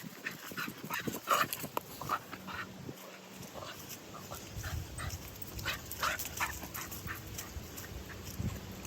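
Labrador retriever making short, irregular dog sounds, a scatter of brief yips and whines.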